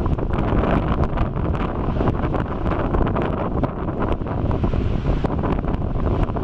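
Molten basaltic lava of the Erta Ale lava lake spattering and churning at the lake's edge: a steady rushing noise broken by many sharp crackles and pops, with wind on the microphone.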